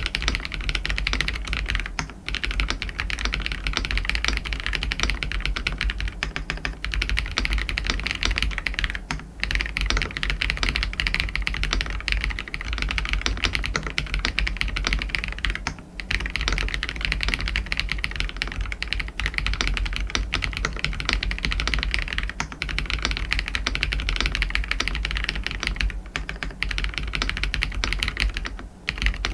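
Fast, continuous typing on an Aula F87 Pro mechanical keyboard with fully lubed Kailh BCP switches, stock doubleshot ABS keycaps and greased stabilizers: a dense run of keystroke clicks. Typing briefly stops about 2, 9 and 16 seconds in, and there is a longer lull near the end.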